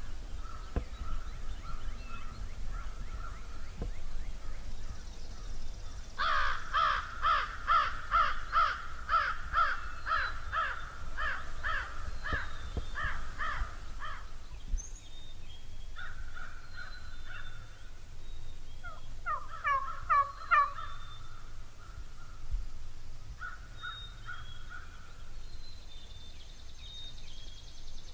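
Turkey yelping: a long, loud run of yelps at about two a second, then a quicker burst of sharp, falling notes about twenty seconds in, with fainter yelp series before and after.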